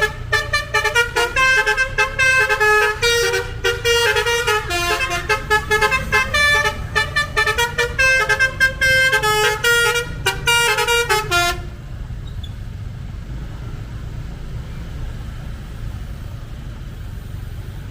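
Basuri telolet horn on a tour bus playing a fast tune of short, stepping horn notes, which cuts off sharply about two-thirds of the way in. A low steady rumble of the bus running carries on underneath and after it.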